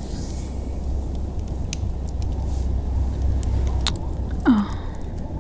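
Snow-storm ambience: a steady low wind rumble, with scattered faint clicks and a short sound falling in pitch about four and a half seconds in.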